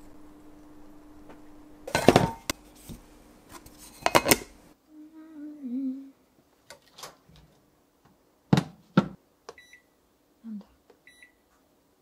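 A steady low hum with two loud thumps about two seconds apart, then two sharp clacks, then short high electronic beeps from the touchscreen control panel of a Toshiba Ishigama Dome ER-XD7000 oven as it is tapped, twice near the end.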